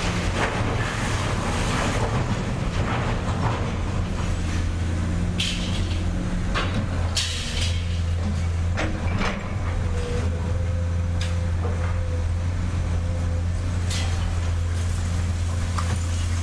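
Large excavator's diesel engine running steadily, with scattered clanks and knocks throughout.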